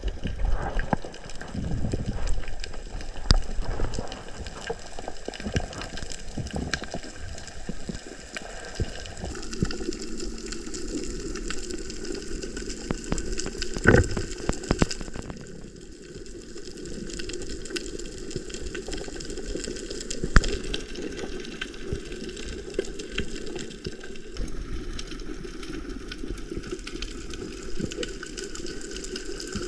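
Rushing, bubbling water with many scattered sharp clicks and a few louder knocks; the sound changes character about nine seconds in.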